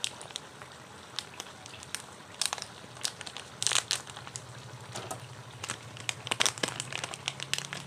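Thick curry sauce simmering in a wok over a gas burner: irregular pops and crackles, with small clusters a few times, over a low steady hum.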